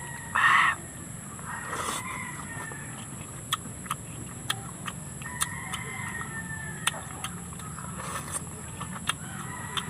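Close-up eating sounds: wet chewing and lip-smacking clicks, scattered through, with one brief louder noise about half a second in.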